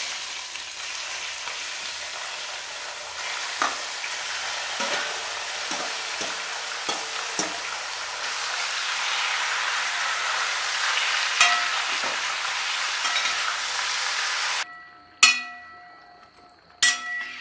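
Marinated chicken sizzling as it fries in hot coconut oil in a brass uruli, with small clicks of the utensil against the pan. The sizzle cuts off suddenly near the end, followed by two sharp metallic knocks of the spatula on the brass pan that ring briefly.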